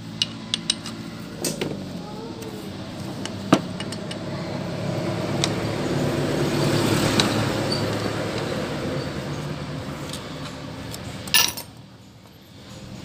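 A motor vehicle engine running, swelling louder toward the middle and fading again. Over it come scattered light clicks and knocks of parts being handled, with a louder clatter near the end.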